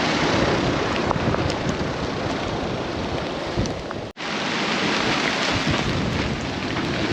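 Strong gusting wind buffeting the microphone, a dense, loud rush of noise. About four seconds in it cuts out completely for an instant, then resumes.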